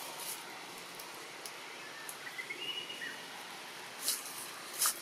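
Tree-canopy ambience: a steady hiss, a faint high whistled call about two seconds in, and two short rustling bursts near the end.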